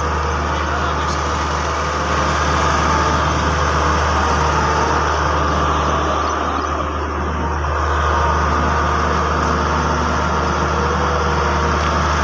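Diesel engine of a Hitachi EX100WD wheeled excavator running steadily as the machine drives slowly along a road, a constant low hum with a faint whine above it.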